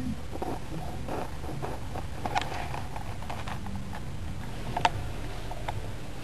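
A cat's claws scratching and tapping at a cardboard box: a string of soft scrapes and small clicks, with sharper clicks about two and a half seconds in and again near five seconds.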